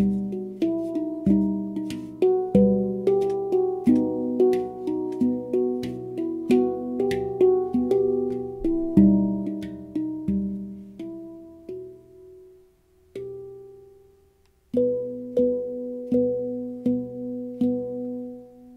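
Pantheon Steel Halo handpan in the Onoleo scale, played by hand: a run of struck, ringing steel notes. About twelve seconds in the playing thins to a few decaying notes and a brief pause, then resumes with a repeating figure.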